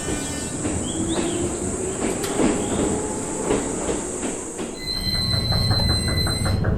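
Train passing with a continuous rumble of wheels on rails; a steady high tone joins about five seconds in.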